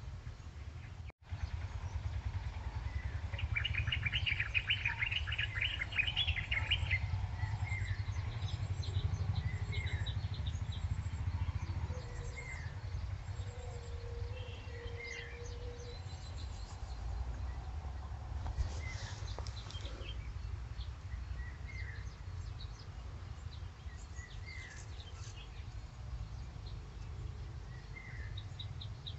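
Birds chirping and calling, with a burst of rapid chattering a few seconds in and short single chirps repeating every few seconds after it, over a steady low rumble. A brief steady tone sounds midway.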